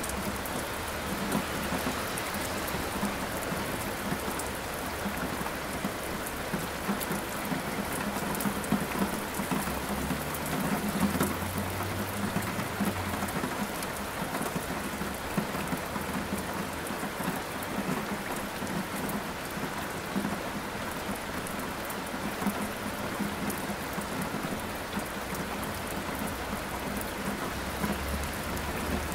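Steady rainfall on hard surfaces with low rumbles of thunder, the strongest about a third of the way in.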